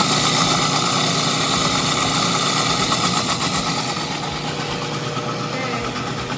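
Electric food processor running steadily, its blade chopping a green herb paste with olive oil into a smooth purée.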